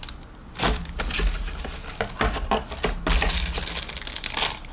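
Thin plastic shrink-wrap bag crinkling and rustling as a clear plastic model-kit sprue inside it is handled, with irregular light plastic clicks and knocks.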